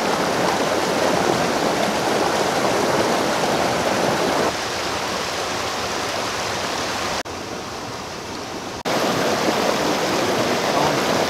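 Creek water rushing steadily over rocks and a small cascade. The rush drops quieter for about a second and a half about seven seconds in, then comes back.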